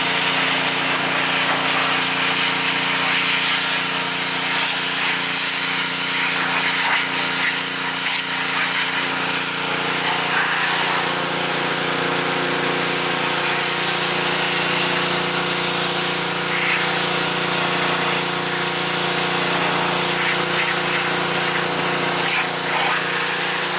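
Pressure washer running steadily under a loud, continuous hiss of its high-pressure water jet blasting the car's rear window and trim.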